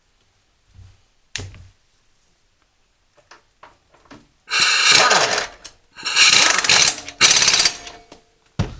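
A power tool driving the mower blade's bolt in, in three loud bursts of rapid rattling over the second half, tightening the blade onto the mower. A sharp knock comes just over a second in, and another just before the end.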